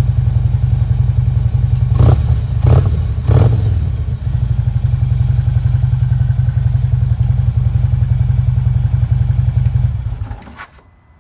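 2015 Harley-Davidson Road Glide's twin-cam V-twin with SE 254e cams, running through Vance & Hines Power Duals headers and Arlen Ness by Magnaflow mufflers, idling with a steady lumpy rumble. About two seconds in it is blipped three times in quick succession, then it settles back to idle and is shut off near the end.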